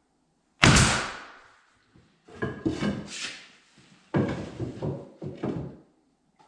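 Knocks and clatter of wood being handled: one loud sharp knock about half a second in, then two runs of quicker, lighter knocks.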